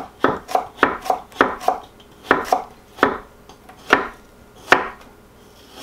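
Kitchen knives chopping onions on a wooden butcher-block board: about a dozen sharp knocks of blade on wood. They come quickly, about three a second, for the first second and a half, then slow to single knocks spaced a second or so apart.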